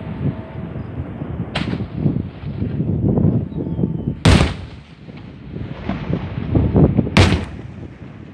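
Fireworks going off: three loud sharp bangs a few seconds apart, about one and a half, four and seven seconds in, over a continuous run of rapid smaller pops and rumble.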